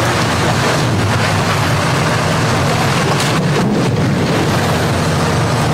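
Hitachi hydraulic excavator working, its diesel engine running steadily as the bucket tears into a house wall, with wind noise on the microphone.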